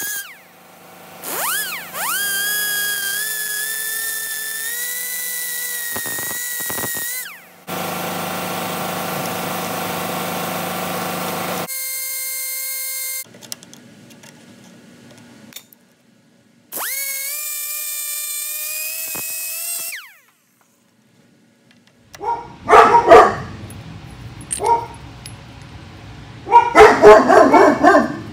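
High-speed rotary tool with a cut-off wheel grinding through the old worm gear on a BMW transfer case actuator motor's shaft. It makes a high whine that spins up and runs in several stretches, with short pauses between. Near the end come two loud clusters of sharp bursts.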